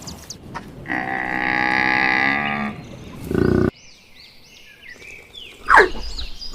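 A cow mooing, one long call lasting nearly two seconds. After a sudden cut come quieter high chirps and, near the end, a short loud call that falls in pitch.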